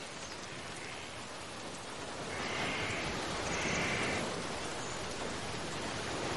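Steady hiss of outdoor jungle ambience with faint rustling, and two faint high buzzing calls in the middle.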